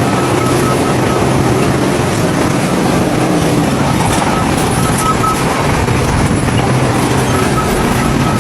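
Heavy diesel earthmoving machinery, bulldozers, running steadily under load. A high beeping sounds in short runs about three times.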